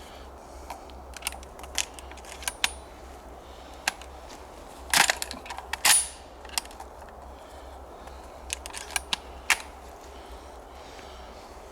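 A scattered run of sharp clicks and snaps, the two loudest about five and six seconds in.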